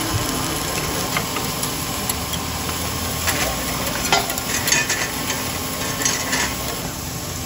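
Fried eggs and a piece of chicken sizzling in oil on a flat-top griddle. From about three seconds in, a metal spatula scrapes and clicks against the griddle several times as the eggs are lifted.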